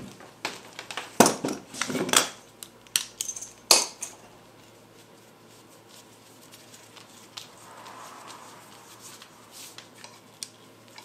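Knocks and clinks of hard parts and tools being handled, about eight sharp ones in the first four seconds, then only a few faint ticks.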